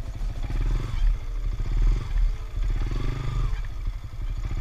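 Yamaha Sniper 150 motorcycle's single-cylinder four-stroke engine running under way, its pitch rising and easing a few times with the throttle.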